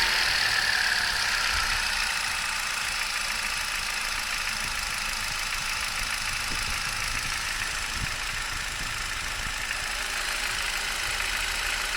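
Hyundai i20's 1.2-litre Kappa four-cylinder petrol engine idling, the revs dropping back in the first second or so and then running steadily. It carries the engine noise the owner says appeared after 45,000 km.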